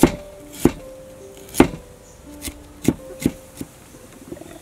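A heavy cleaver chopping lemongrass, garlic and galangal on a wooden chopping board: five sharp, unevenly spaced chops over soft background music.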